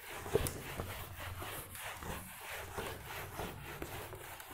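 Whiteboard eraser wiped in repeated strokes across a whiteboard, a quiet rubbing swish about twice a second.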